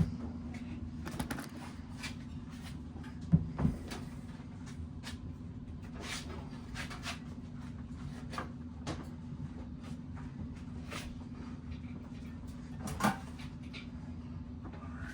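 Hand work on a greased bicycle wheel hub: scattered small clicks of parts and tools being handled, with a pair of louder knocks about three seconds in and another near the end, over a steady low hum.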